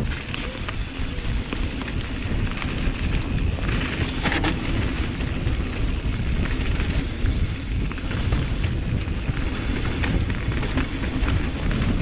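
Wind rumble on the microphone with tyre and frame noise from a mountain bike riding downhill on a wet dirt trail, and a few brief knocks from bumps.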